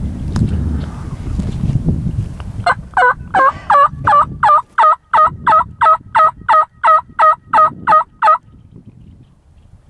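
A long run of about sixteen loud, evenly spaced turkey yelps, close to three a second, that starts a few seconds in and stops abruptly. A low rumble of wind on the microphone comes before it.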